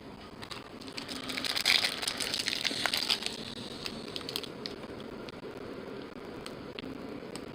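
Foil wrapper of a baseball card pack crinkling and crackling as it is handled and torn open, loudest for the first few seconds, then quieter rustling with scattered clicks.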